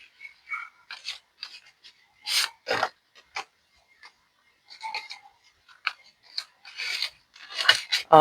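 Paper banknotes and envelopes rustling in short, irregular swishes as cash is handled and stuffed into a savings challenge.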